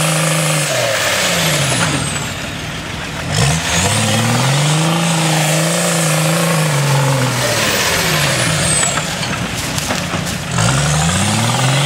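UAZ off-roader's BMW 2.4 turbodiesel engine under heavy load on a steep climb, its revs rising, holding and dropping away again several times. A single thump about three and a half seconds in, just before the revs climb.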